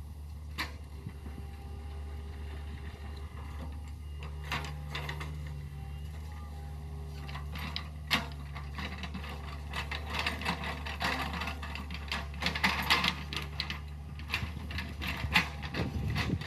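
Hitachi mini excavator's diesel engine running steadily under a hydraulic dig, with scattered metallic clanks and knocks from the bucket and boom that come thick and loud in the second half.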